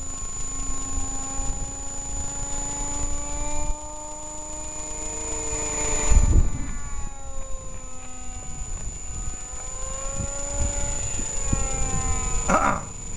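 Electric motor and propeller of a Hobbyking Cessna 182 RC model plane in flight, a whine that slowly rises and falls in pitch as it passes and the throttle changes. Wind buffets the microphone, with a loud gust about six seconds in.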